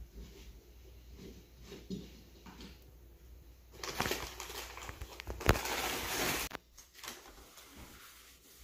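Paper takeout bag rustling and crinkling as food is taken out of it, loudest for a few seconds in the middle with a sharp crackle partway through. Quieter handling of food packaging before and after.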